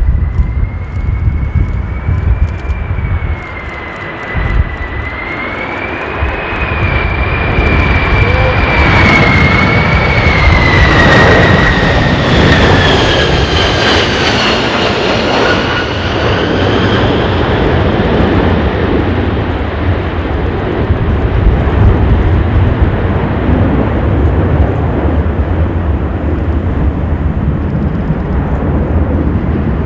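Jet airliner's engines passing close by: a high whine that wavers, then falls in pitch as the aircraft goes past about halfway through, over a steady low rumble of strong wind on the microphone.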